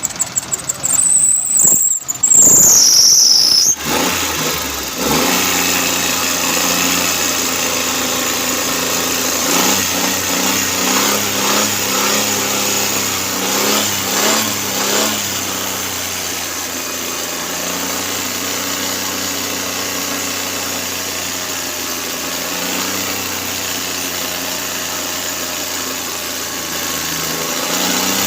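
Suzuki Cultus three-cylinder engine being cranked and catching, with a high squeal that falls in pitch as it fires, then running steadily at idle with a few brief throttle blips. It is being run to test a newly fitted ignition coil for misfiring.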